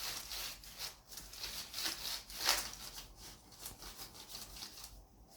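A paper napkin damp with disinfectant rubbed back and forth over a computer keyboard and mouse pad: a run of short scrubbing strokes, the loudest about two and a half seconds in, thinning out near the end.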